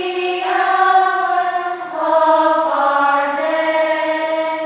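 Background music of choir voices singing long held notes, the chord shifting to new notes a few times.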